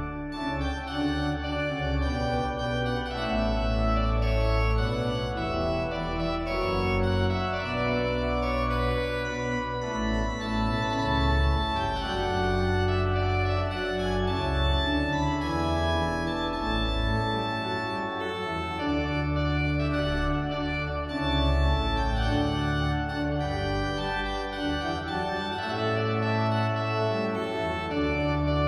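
Organ music: slow, sustained chords over deep held bass notes, changing every second or two.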